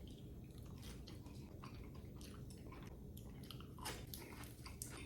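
A person chewing crunchy food close to the microphone, with irregular crackling crunches and a few louder crunches near the end.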